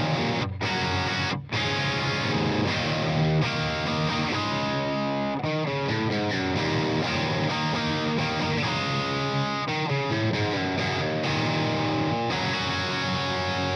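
Electric guitar with Monty's Bethnal Green pickups played through a Fryette amplifier on a crunch setting, with no boost: a steady run of overdriven chords and notes. Two short breaks come about half a second and a second and a half in.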